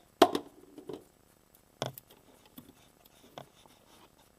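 A series of sharp clicks and taps from hands handling small parts and tape: a loud pair of knocks about a quarter second in, another clear knock near the two-second mark, and fainter scattered ticks in between.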